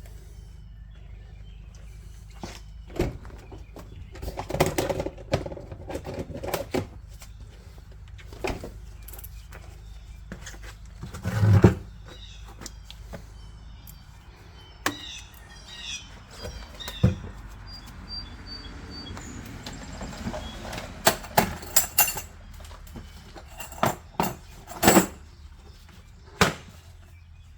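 Hand tools clattering and knocking while brake work on a Toyota 4Runner's rear caliper is set up: a scattered series of sharp knocks and clinks, with faint birds chirping around the middle.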